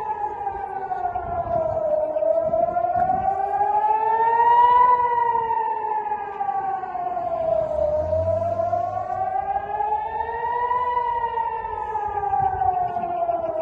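Civil defence air raid siren wailing, its pitch rising and falling slowly, about six seconds to each cycle: the warning of incoming missiles.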